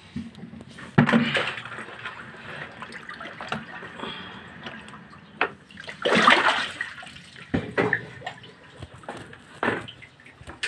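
Water sloshing and splashing in a flooded concrete pit, with a few louder sudden splashes, the loudest about a second in and around six seconds in.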